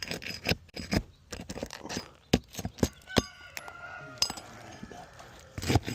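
Metal nail puller clicking and clinking against roofing nails as they are pried out of brittle asphalt shingles, in irregular sharp knocks and scrapes.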